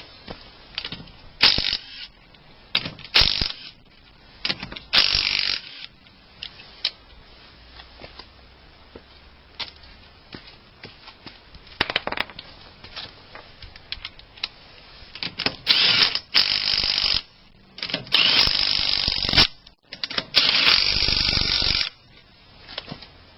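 Makita TW251D cordless impact wrench hammering on wheel nuts in several short bursts, then three longer runs of about a second and a half each in the second half. Small clicks and knocks of handling come in between.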